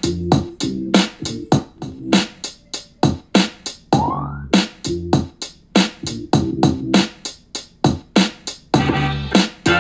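Instrumental electronic hip-hop beat playing through an Anker Soundcore Flare 2 Bluetooth speaker: a steady drum-machine pattern over a deep bass line, with a short rising sweep about four seconds in.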